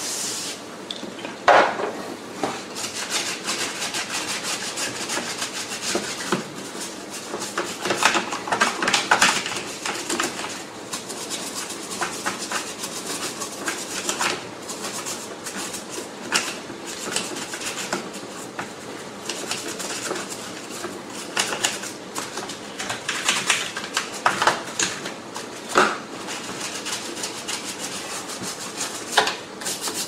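Toothbrush scrubbing the plastic floor head of a Shark cordless stick vacuum, a continuous scratchy rubbing, with a few sharp knocks of plastic against the countertop, the loudest about a second and a half in.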